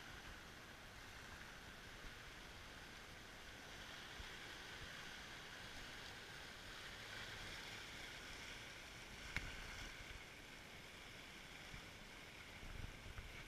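Faint, steady wash of small sea waves lapping over rocks at the shoreline, with a single sharp click about nine seconds in.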